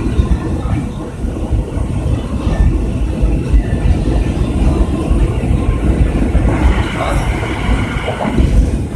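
Steady low rumble of road and wind noise from a moving car.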